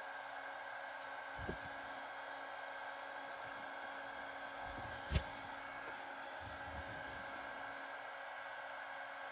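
Steady fan-like hum, with light handling noise from wires and blue butt-splice connectors: a soft knock about a second and a half in and a sharper click about five seconds in.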